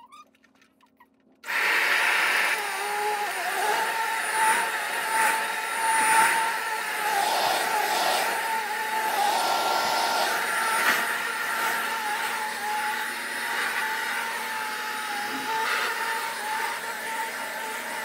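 Kirby Ultimate G Diamond Edition upright vacuum cleaner running while vacuuming, a steady motor hum and whine that swells and dips a little. It comes in abruptly about a second and a half in.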